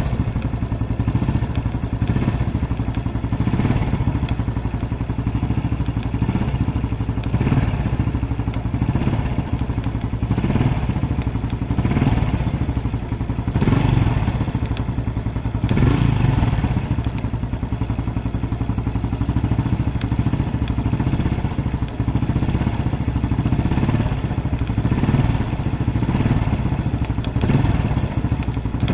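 Honda Biz single-cylinder four-stroke engine running, with a repetitive 'tec tec' ticking from the engine and a few brief swells in engine speed around the middle.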